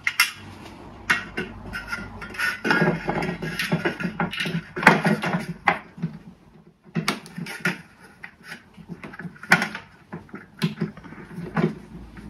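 Screws being turned in by hand with a screwdriver into pre-drilled holes: irregular clicks, small knocks and scraping of the screwdriver and the mounting piece.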